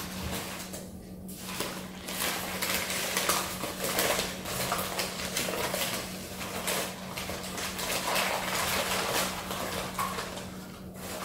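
Small glasses clinking and clattering against each other as they are handled and lifted out of a box, a run of quick knocks and rustles.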